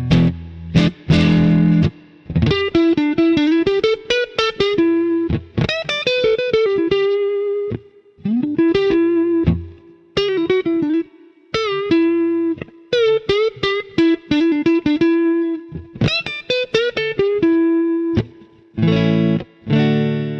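Fender Stratocaster electric guitar through a lightly overdriven amp: strummed chords, then a single-note lead line with bent notes, closing on strummed chords.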